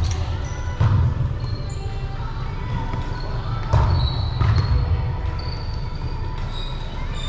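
Indoor volleyball play in a gym: sharp hits of the ball about a second in and again near four seconds in, echoing in the hall. Short high shoe squeaks on the court come and go over a steady low rumble.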